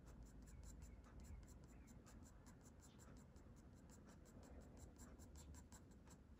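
Graphite pencil tip scratching faintly on drawing paper in quick, short flicking strokes, several a second, as fine strands of fur are shaded in.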